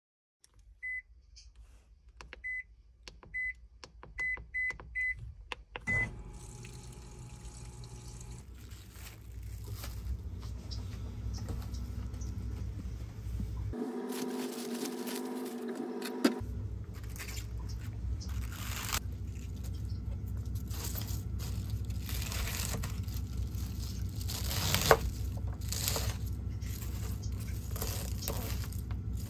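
An appliance beeps about seven times at one high pitch over the first six seconds, then a steady low hum sets in. In the latter part a kitchen knife chops cabbage on a plastic cutting board: a run of knocks with one sharp strike.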